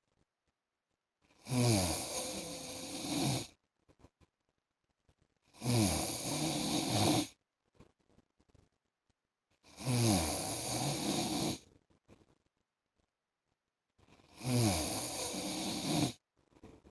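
A man snoring: four long snores about four seconds apart, each opening with a drop in pitch, with near silence between breaths.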